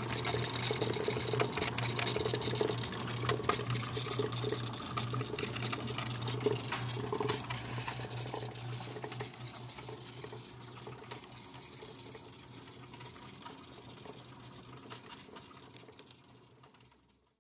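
Electric motor and V-belt pulley drive of a light clay straw tumbler running with a steady hum and light clatter, gradually fading away over the second half.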